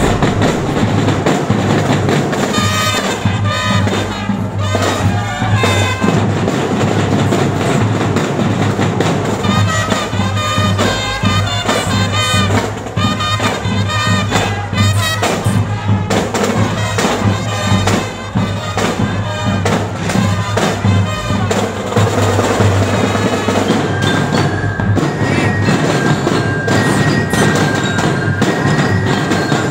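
A school drum, bugle and lyre corps playing: marching drums keeping the beat under brass and bell-lyre melody.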